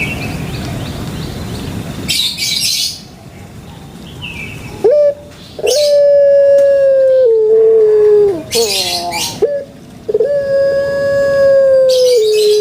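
Puter pelung (domesticated ringneck dove) cooing: two long drawn-out coos, about five and ten seconds in, each held on one note and then stepping down at the end, with short rolling notes between them. Short bursts of high hiss come before and between the coos.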